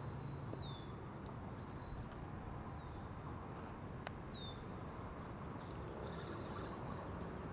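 Faint outdoor background with a small bird giving short, high, downward-sliding calls three times. There is a single light click about four seconds in and a brief buzzy trill about six seconds in.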